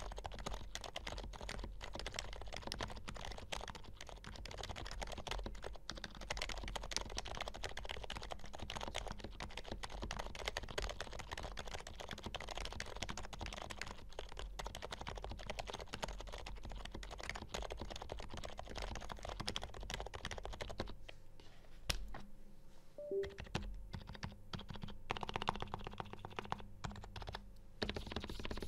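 Continuous fast typing on an HHKB Professional Hybrid Type S keyboard, its silenced Topre electrostatic-capacitive switches lubed with Krytox 205g0, giving a dense run of quick keystrokes. About three quarters of the way through the keystrokes thin out to scattered presses, then speed up again near the end.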